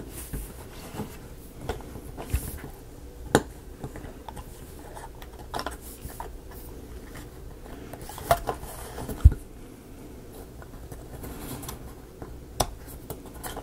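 Thin laser-cut plywood model pieces clicking and knocking as they are handled and small pegs are pressed into their holes: scattered sharp clicks a second or two apart, with one louder knock about two-thirds of the way through.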